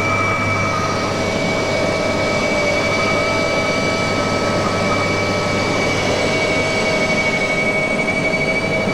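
Mi-2 helicopter in flight heard from inside the cabin: its twin turboshaft engines whine steadily in several high tones over a dense, even rotor and airflow noise with a low hum.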